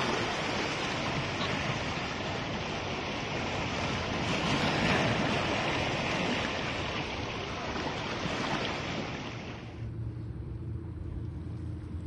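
Ocean surf washing in, a steady rush of breaking waves that swells about halfway through. About ten seconds in it cuts off abruptly, leaving a low steady hum.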